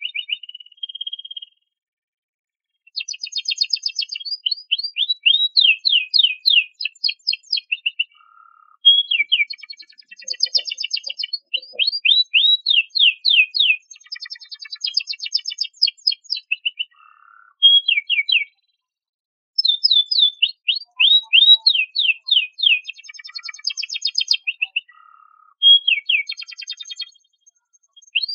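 Domestic canary singing: fast rolling trills and chirps in phrases of several seconds, with short pauses between them.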